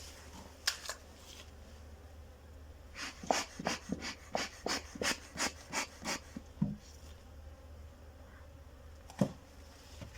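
Bee smoker bellows being puffed about a dozen times in quick succession, short breathy whooshes at three or four a second, with a few single wooden knocks from the hive before and after.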